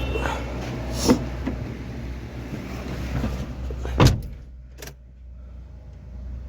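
Clicks and knocks of someone handling the car ahead of a start attempt, over a steady low rumble; the loudest sharp click comes about four seconds in, after which the rumble drops away.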